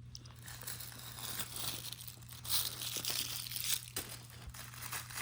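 Crinkly material crinkling and rustling as a kitten pounces on and bats at it, with scattered crackles that are busiest about halfway through.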